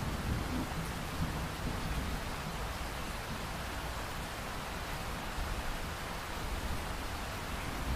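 Steady, even hiss of rain-like noise, with a low rumble in the first two seconds.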